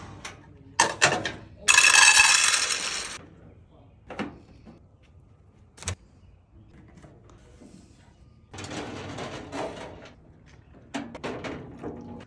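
Steel filing-cabinet drawers sliding on their metal runners and knocking shut, with scattered metal clunks. The loudest is a harsh metal scrape lasting about a second and a half, about two seconds in.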